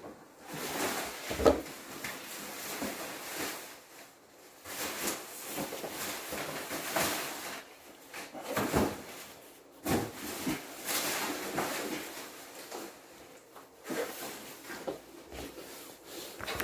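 Cardboard shipping box being handled: irregular knocks, scrapes and rustling, with short pauses between them.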